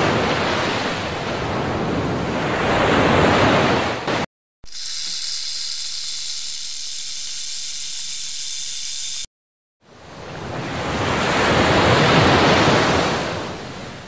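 Surf washing onto a beach for about four seconds. Then a rattlesnake's rattle buzzes steadily as a high hiss for about five seconds. After a short break a wave swells and fades away near the end.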